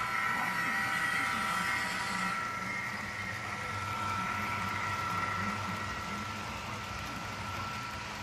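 HO scale model diesel locomotives running on the layout track: a steady high electric whine over a low rumble, louder in the first couple of seconds as the train passes close by.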